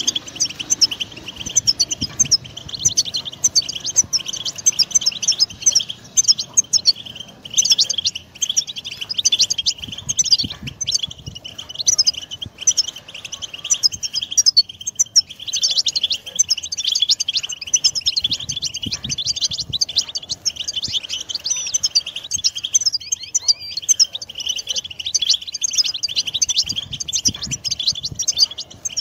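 A chorus of European goldfinches singing together: a dense, unbroken twittering of quick chirps and trills.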